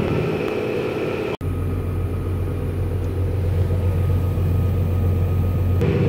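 Steady drone of a farm vehicle's diesel engine heard inside its closed cab. It drops out for an instant about a second and a half in, and after that a deep hum is stronger.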